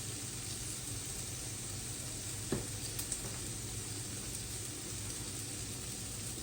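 Bacon and burger patties sizzling on an electric indoor grill: a steady frying hiss over a low steady hum, with a couple of light clicks about halfway through.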